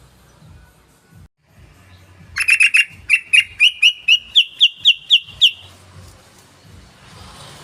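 Yellow-vented bulbul (trucukan) calling: a quick chattering run of about a dozen sharp, clear notes lasting about three seconds, starting about two seconds in, the first few bunched together and the rest evenly spaced at about four a second.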